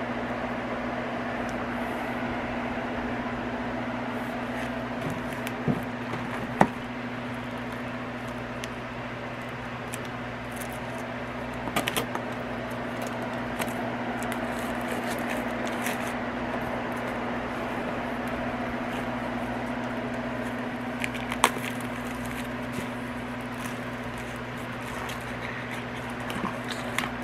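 A steady low hum of a running appliance fills the room, with a few brief clicks and crinkles of a diamond-painting kit's packaging being handled, three of them a little louder about six, twelve and twenty-one seconds in.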